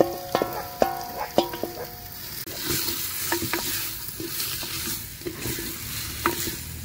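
A wooden spoon taps marinated mutton off a stainless steel bowl, and each tap sets the bowl ringing. From about two seconds in, the meat sizzles in a hot clay handi while the spoon scrapes and knocks as it stirs.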